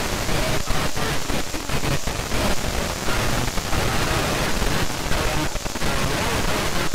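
FM radio static: a steady hiss from a receiver tuned to the ISS's 145.800 MHz downlink, broken by brief dropouts, with no clear voice coming through.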